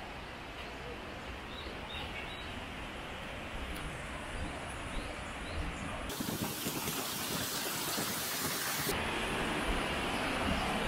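Outdoor wind noise: a steady hiss with wind buffeting the microphone in low, uneven rumbles, growing gradually louder. The hiss turns brighter and fuller between about six and nine seconds in.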